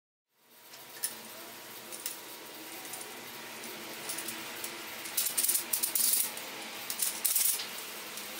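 Homemade steel corner clamp being handled: threaded steel rods and corner blocks clinking and rattling, with a couple of light clicks early and bursts of metallic jangling about five and seven seconds in.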